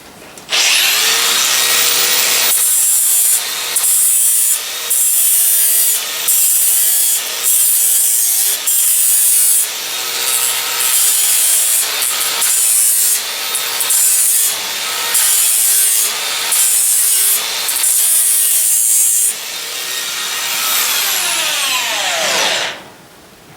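Electric grinder switched on and running up to speed, then touched to a horse's hoof in a long series of short grinding passes, each a rasping burst over the motor's whine. It then runs free for a moment and is switched off, its whine falling as it spins down to a stop.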